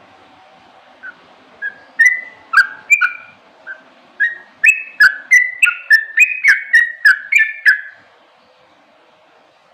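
Sooty-headed bulbul (kutilang) singing a string of short, loud whistled notes. It starts with a few spaced notes about a second in, quickens into a rapid run of two-pitched notes, and stops near eight seconds.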